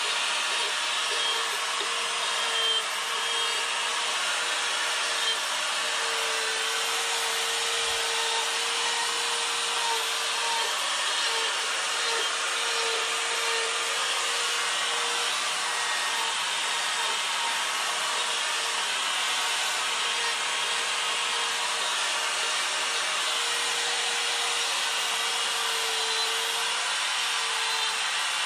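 Electric die grinder with a coarse Saburrtooth flame burr grinding a small wooden carving: a steady motor whine over the rasping hiss of the burr cutting wood.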